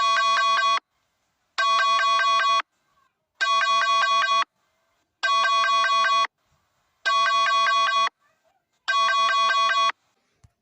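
Electronic alarm tone sounding in six identical bursts, each about a second long and made of rapid pulses, repeating about every two seconds with silence between.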